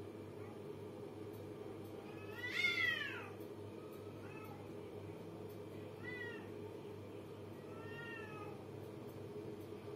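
Two cats in a face-off yowling at each other: one loud, drawn-out moaning yowl about two and a half seconds in, falling in pitch, then shorter, fainter calls around four, six and eight seconds. These are the threatening yowls of a cat standoff, a challenge between the two.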